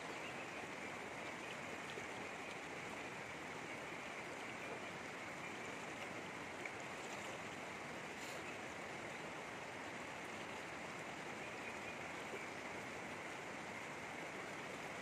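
Steady rushing of river water, an even hiss that holds unchanged throughout.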